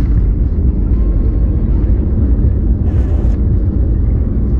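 Airliner rolling along the runway after landing, heard inside the cabin: a steady low rumble of engines and wheels on concrete, with a brief hiss about three seconds in.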